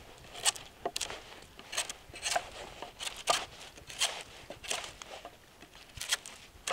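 A carbon-steel bushcraft knife (Adventure Sworn Explorer) shaving the bark off a green sapling pole: a dozen or so short rasping scrapes at an uneven pace, roughly two a second.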